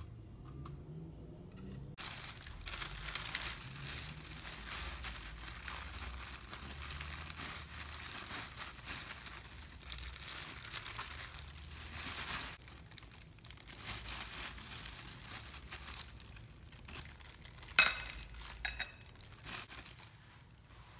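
Thin plastic crinkling and rustling, starting about two seconds in and growing patchy in the second half, as raw chicken strips are handled with a disposable plastic glove and a plastic bag of flour. A single sharp click near the end.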